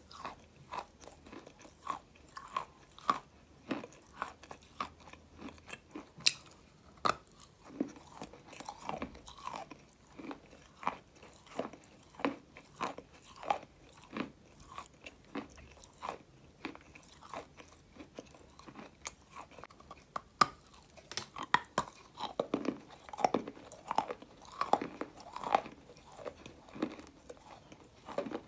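A person chewing a mouthful of white clay close to the microphone: irregular crunches and mouth clicks, a few every second, growing busier and louder about three quarters of the way through.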